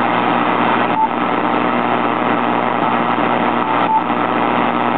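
Power-line interference heard through a Yaesu FT-2000 HF transceiver's speaker on the 160-meter band with the second preamp on: a loud, steady buzz of hum tones over hiss. It is electrical noise radiated by nearby utility power lines, reading about 60 over S9.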